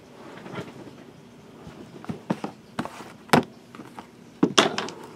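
Handling noise on a tabletop: a scatter of short sharp taps and clicks as things are picked up and set down, the loudest about three and a half seconds in and again just over a second later.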